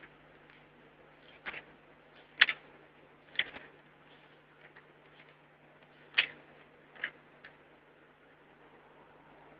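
About six short, sharp clicks or taps spread unevenly over a few seconds, over a faint steady hum.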